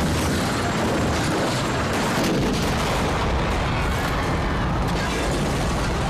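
Dramatic sound effects of a helicopter going down and blowing up in mid-air: a loud, steady rumble with crackling blasts.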